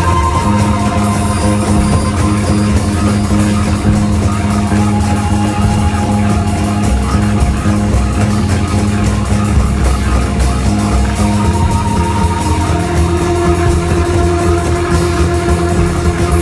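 Loud, steady instrumental music: a dense, unbroken groove of drums and bass with long held notes from guitar and keyboards layered over it.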